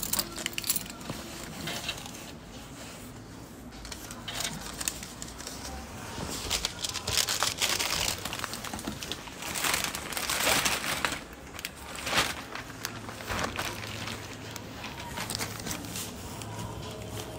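Plastic shopping bags rustling and crinkling as shopping is packed at a supermarket self-checkout after payment, with scattered clicks and knocks; busiest around the middle.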